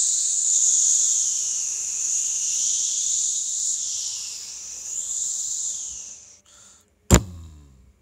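A steady high-pitched hiss that swells and ebbs a little, fading out about six seconds in. About seven seconds in, a single sharp hit with a falling low boom after it.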